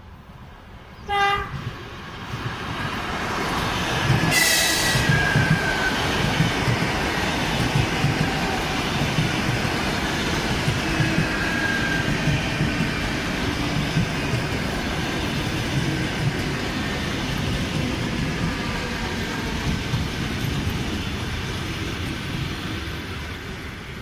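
An ЭП2Д electric commuter train gives one short horn toot, then passes at speed with a loud steady rolling of wheels on rail. The noise is loudest as the front goes by about four seconds in, with a brief screech and a falling tone, and it eases off near the end.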